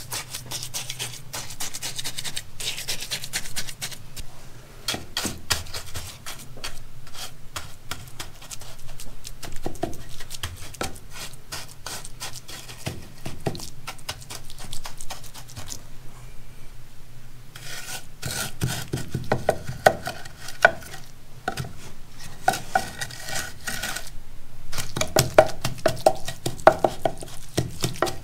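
Wooden block scraping and tapping over wet concrete with many short strokes, pressing down and smoothing the freshly placed mix.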